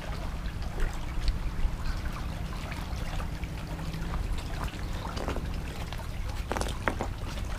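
Small waves lapping and trickling against the rocky lakeshore, with wind rumbling on the microphone. Scattered crunches of footsteps on loose rock and gravel, most of them in the second half.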